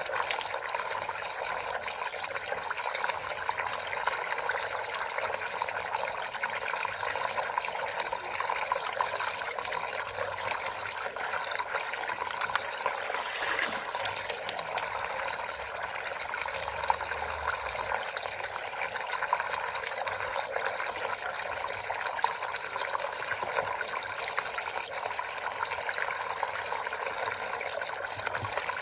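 Water swirling in a large whirlpool vortex and draining down the hole at its centre: a steady rushing and splashing water sound.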